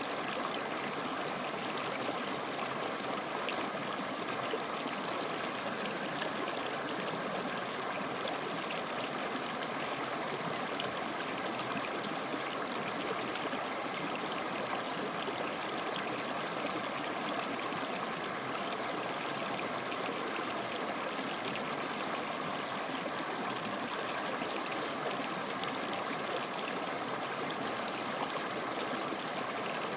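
A mountain river flowing over rocks: a steady, even rush of water.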